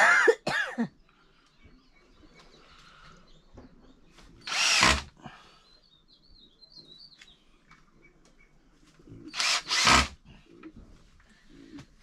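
Cordless drill run in short bursts: two quick spins at the start, each falling in pitch as the motor winds down, a half-second burst a few seconds later, and two more bursts near the end.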